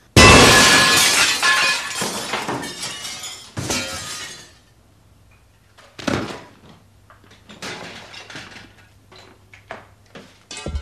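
Glass shattering in one sudden loud crash, pieces ringing and clattering as they fall for several seconds. Smaller knocks follow about three and a half and six seconds in, then scattered light clinks of glass near the end.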